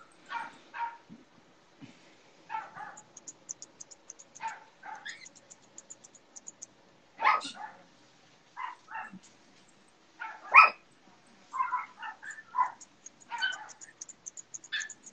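A dog barking and yipping in short, repeated barks, several coming in quick pairs, with the loudest about seven and ten and a half seconds in.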